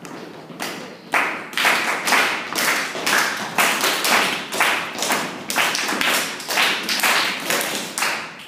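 A group of people clapping hands together in a steady rhythm, about two claps a second, starting about a second in and stopping near the end.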